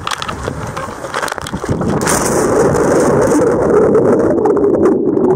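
Knocks and rustling as someone goes off a wooden platform, then about two seconds in a splash into the lake. A loud, muffled rush of bubbling water follows as the recording goes underwater.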